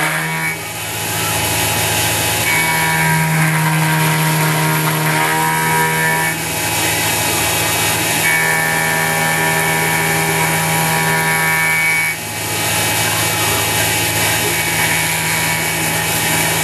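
CNC mini mill cutting 6061 aluminium: the spindle and cutting noise run steadily under a whine whose pitch jumps to a new note every few seconds as the feed moves change.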